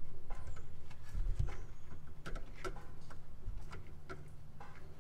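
Pliers gripping and working the clamp on a power steering rack's rubber boot: an irregular scatter of small clicks and scrapes over a low steady hum.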